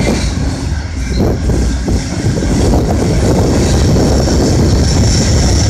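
Amtrak Capitol Corridor passenger train rolling across a steel truss bridge: a steady low rumble, with the rattle of wheels on the rails growing louder about halfway through.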